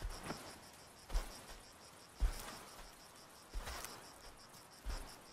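Insects chirping in a fast, even pulse, with a soft crunch about once every second or so: an elephant's footfalls in dry grass and brush as it walks.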